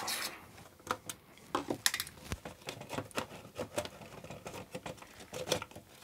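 Irregular light clicks and taps of a screwdriver and hands on the metal chassis of an NAD 3020 amplifier as the screws holding its faceplate are taken out.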